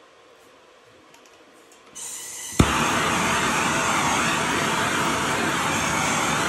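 Handheld gas torch being lit: gas starts hissing about two seconds in, a sharp click as it ignites, then the flame burns with a loud, steady hiss.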